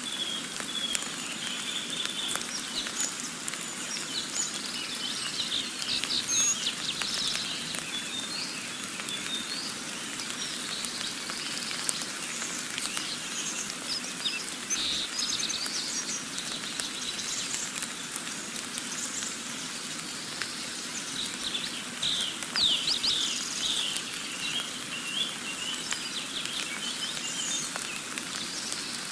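Nature ambience of many small birds chirping and twittering over a steady background hiss, starting suddenly.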